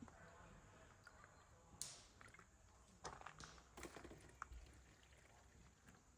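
Near silence, broken by a few faint, scattered clicks and light knocks.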